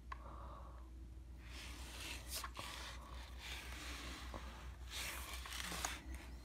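Faint handling noises from a chainsaw being turned over in the hands: two soft rustling stretches, about one and a half and five seconds in, and a few light clicks, over a low steady hum.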